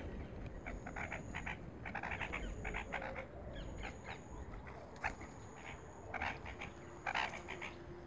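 Animal calls: short chirps in quick runs, with a thin high note that comes and goes every second or two.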